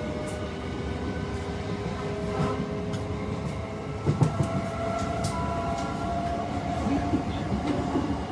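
Class 376 Electrostar electric multiple unit pulling away hard, its traction motors whining in several tones that climb slowly in pitch and step higher about halfway through, over a rumble with scattered clicks from the wheels on the rails.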